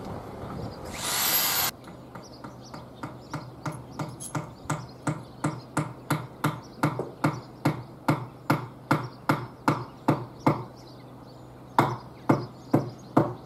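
Hammer blows on a timber wall plate: steady hammering at about three blows a second, stopping about ten and a half seconds in, then starting again near the end. A short loud noisy burst comes about a second in, before the hammering.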